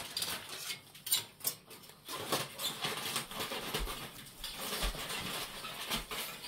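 Aluminium foil crinkling and crackling as it is unwrapped and cut with scissors, in an irregular run of crackles and snips. The scissors are being sharpened by cutting through the foil.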